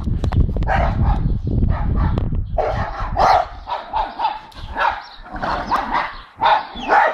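Two dogs, a four-month-old blue Staffordshire bull terrier puppy and a white dog, barking repeatedly in short calls at a neighbouring dog over the fence. A low rumble on the microphone runs under the barks for the first couple of seconds.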